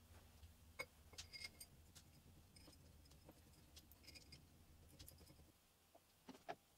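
Near silence with faint, scattered metal clicks and taps as small bolts and a steel crankcase-splitting puller plate are fitted onto an aluminium motorcycle engine crankcase, ending in two slightly louder knocks near the end.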